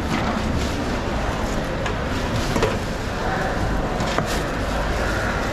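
Steady low rumble of background din with indistinct voices, broken by a few sharp knocks.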